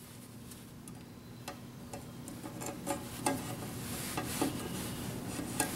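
Power cord being fed through a rubber grommet in a sheet-metal meter housing: scattered small clicks, taps and rubbing of cable against metal, coming more often and getting louder toward the end.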